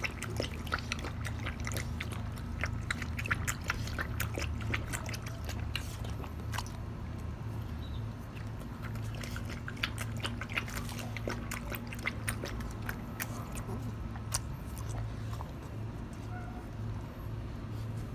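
Bull Terrier lapping water from a stainless steel bowl: quick, irregular wet clicks and slaps of the tongue, with a short pause about seven seconds in, thinning out near the end. A steady low hum runs underneath.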